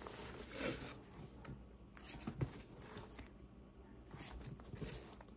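Faint rustling and soft scrapes of comic books being handled and shuffled, with a few brief louder rustles spread through.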